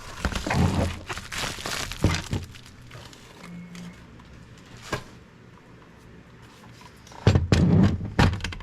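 Handling noise from a replacement 3D-printer power supply unit being picked up and moved: scattered knocks and clicks, a single sharp click about five seconds in, and a louder cluster of thunks near the end.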